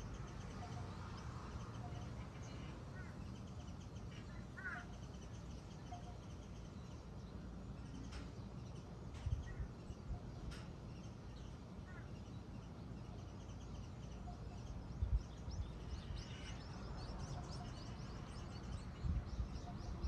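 Small birds chirping now and then over a steady low outdoor rumble, with a few brief low buffets and some faint high ticking near the end.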